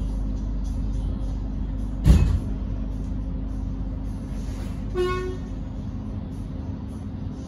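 Steady hum of an X'Trapolis electric train standing at the platform, with a loud thump about two seconds in and a short horn toot about five seconds in as the train prepares to depart.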